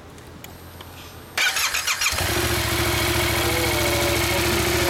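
2015 Yamaha MT-07's 689 cc parallel-twin engine started on the electric starter: a short whirring crank about a second and a half in, catching about half a second later and settling into a steady idle.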